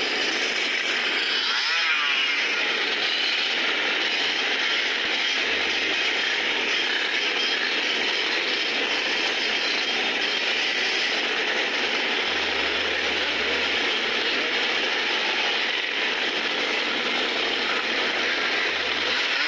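Many Yamaha RX King two-stroke motorcycles running together, their engines blending into a steady, dense buzz.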